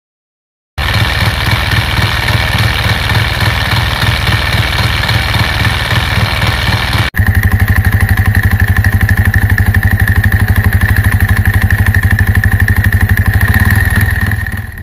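Yamaha Y15ZR motorcycle's single-cylinder engine running steadily at idle, with the dry clutch rattling. It plays as two clips: from about halfway the sound comes back louder, with a steady high whine over the rapid pulsing, and it fades out near the end. The second clip is the clutch after fitting a new clutch plate and oil seal.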